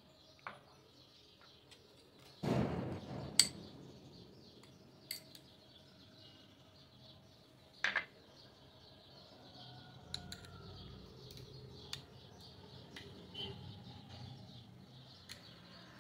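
Scattered clinks and knocks of a spoon and small containers against a glass bowl on a kitchen counter, with a short louder clatter about two and a half seconds in.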